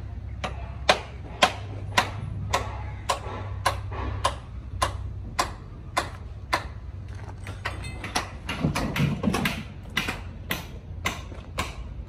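A steady series of sharp knocks, about two a second, like hammer strikes on a construction site, over a low steady rumble.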